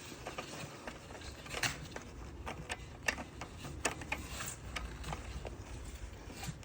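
Scattered light clicks and taps of small metal carburetor parts and tools being handled during reassembly, several sharper ticks standing out amid the fiddling.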